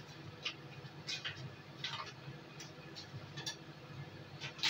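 Paper butter wrapper crinkling and rustling in short bursts, about six times, as a block of butter is handled; the last is the loudest, near the end. A low steady hum runs underneath.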